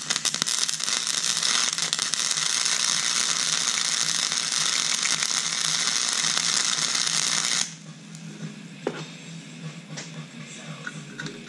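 Wire-feed (MIG) welder arc crackling steadily as a nut is welded onto a broken bolt stub, stopping suddenly about two thirds of the way through; a few faint clicks follow.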